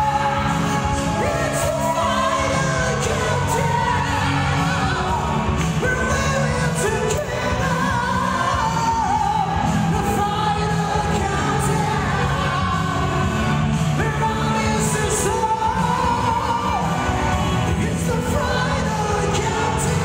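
Men singing a song into handheld microphones over backing music, amplified through PA speakers.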